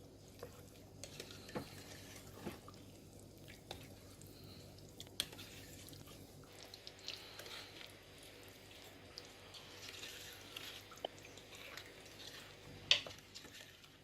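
A spoon stirring chicken pieces through sauce in a crockpot: faint wet squishing with scattered small clicks and knocks of the spoon against the pot, and one sharper knock near the end.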